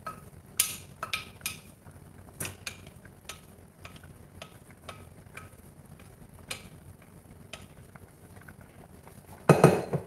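Wooden spatula knocking and scraping against the inside of a stainless steel saucepan as boiled mung beans are scooped out of it. The knocks are irregular, each with a short metallic ring. A louder clatter of the metal pans comes near the end.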